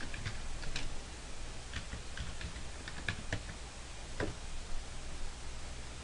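Typing on a computer keyboard: faint, irregular key clicks as a terminal command is entered.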